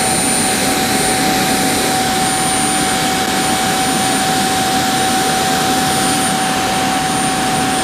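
Homemade radial-turbine turbojet engine running at a steady speed: a loud, even rush of jet noise with a constant whine through it.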